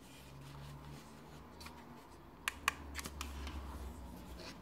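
Small plastic clicks from the scan button and housing of Eachine VR006 FPV goggles being pressed and handled: two sharp clicks about two and a half seconds in, then a quick cluster of softer ones, over a low handling rumble.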